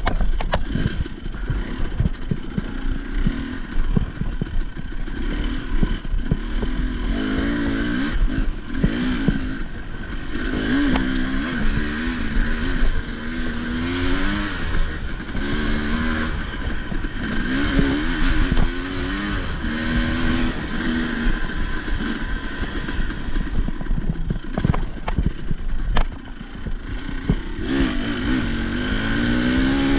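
Enduro dirt bike engine revving up and down over and over, its pitch climbing in repeated runs, with frequent knocks and rattles. The engine drops off briefly near the end, then picks up again.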